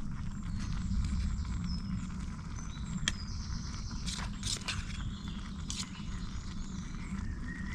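Backpacking stove burning under a pan of cooking food: a steady low rush with scattered crackles and pops.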